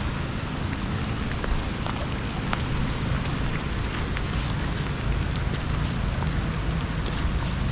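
Steady heavy rain, with scattered drops ticking sharply close by over a low rumble.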